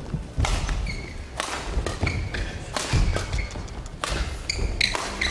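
Badminton doubles rally: rackets strike the shuttlecock in quick succession, about one hit every half second to a second, amid thudding footfalls and short squeaks of shoes on the court.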